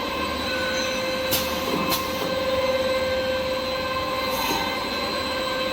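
Paper-converting machinery, the kitchen towel log saw line, running steadily: a constant mechanical hum with a held whine, broken twice by short high hisses about a second and two seconds in.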